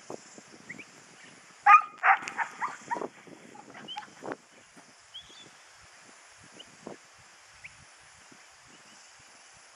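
Dog barking, a quick run of sharp barks about two seconds in and a few single barks later, over faint high chirps.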